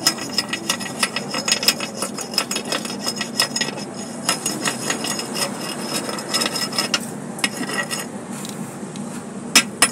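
Hammer chipping slag off a fresh weld bead on a steel plate: rapid metallic taps with a ringing note from the plate. The taps thin out briefly near the end, then one sharper strike.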